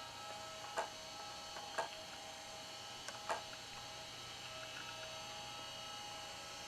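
Steady electrical hum with several faint high whining tones, broken by four soft clicks in the first half.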